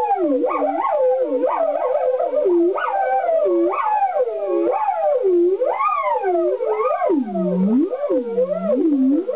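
Burns B3 theremin played through an effects processor and guitar amp, its pitch swooping up and down continuously in wide, wavy glides about once a second, like a warbling siren.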